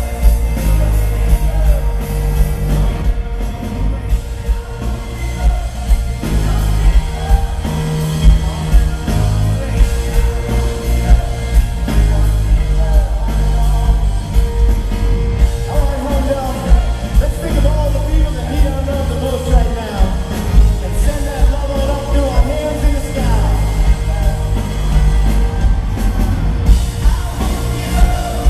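Live pop-rock band playing through a concert PA, recorded from the audience: heavy bass and drums under a male lead vocal, with the singing most prominent in the second half.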